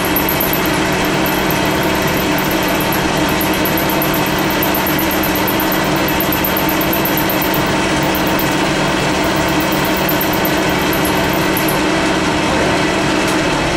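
Electric milling spindle running steadily as a small end mill cuts an internal groove in a metal gear ring held in a lathe chuck: a continuous motor hum and whine.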